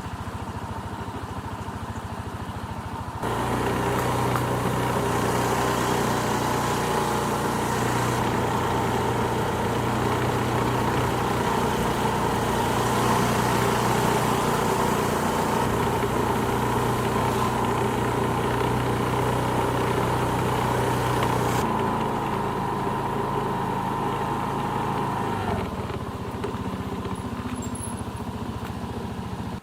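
An engine running steadily at a level pitch. It gets louder about three seconds in and its pitch drops a few seconds before the end.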